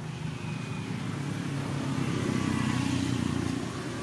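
Steady low rumble of background noise that swells about two seconds in and eases off near the end.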